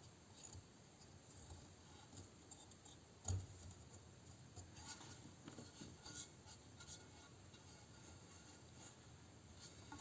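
Faint clicks and rubbing of small parts being handled, with one louder knock about a third of the way in.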